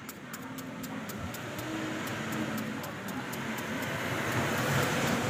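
Street traffic noise from a passing vehicle, swelling steadily and loudest about a second before the end. Under it in the first couple of seconds, a quick run of knife strikes on a peeled apple, about five a second.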